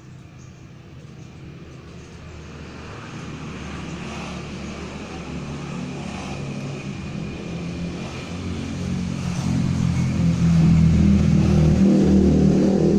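A motor vehicle's engine running with a low steady hum, growing steadily louder over about ten seconds and loudest near the end.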